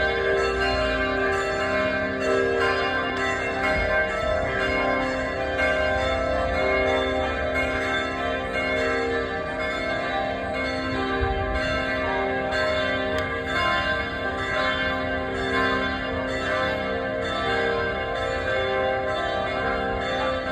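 Pulaski Heights United Methodist Church's bells ringing on without a break, several bell notes struck in turn and overlapping as each rings on.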